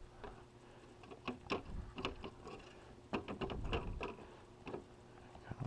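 Irregular clicks, knocks and light thumps of hands working the latches and panel of an RV refrigerator's outside access vent cover to get it off.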